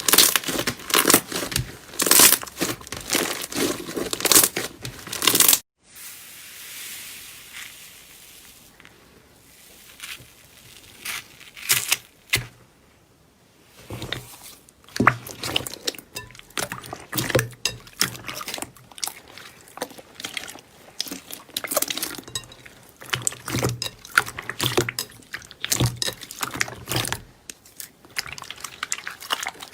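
Slime being squeezed and pressed by hand, making dense crackling and popping clicks. About six seconds in it cuts suddenly to a quieter, softer stretch, and the crackling returns about halfway through.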